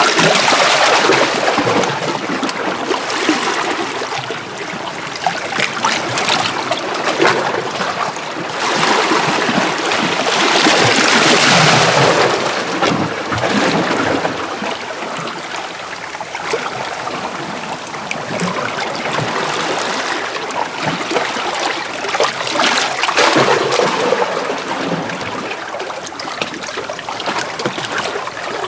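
Small North Sea waves washing in and out over coastal rocks on a calm day. The wash comes in three surges, the loudest about ten seconds in, with small splashes throughout.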